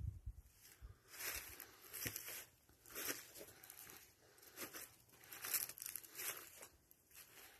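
Footsteps crunching on gravelly ground, a slow walk of about one step a second.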